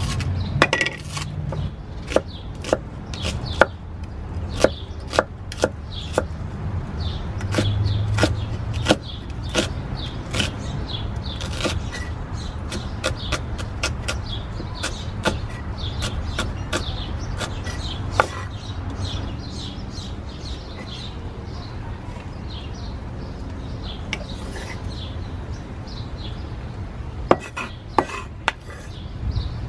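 Kitchen knife chopping an onion on a wooden cutting board: irregular sharp knocks of the blade striking the board, thick and quick in the first dozen seconds, then sparser, with a few more near the end.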